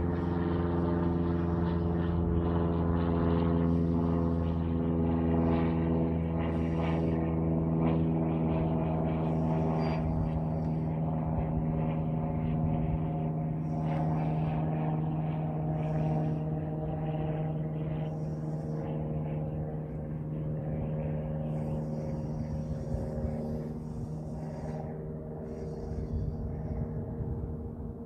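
Boat motor idling with a steady, even-pitched hum, a deep rumble under it fading about eleven seconds in.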